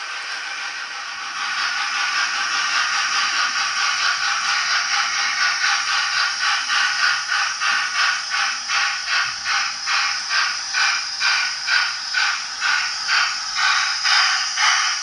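Model steam locomotive's DCC sound, a Hornby A4 with a LokSound decoder, playing through its small onboard speaker: a steady steam hiss, then from about a second in, rhythmic chuffing that grows more distinct, around two beats a second.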